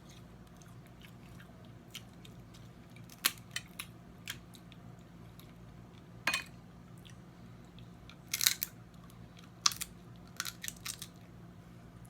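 Snow crab leg shells being cracked and snapped open and eaten: scattered sharp cracks and clicks, some in quick clusters, with eating sounds between. A steady low hum sits underneath.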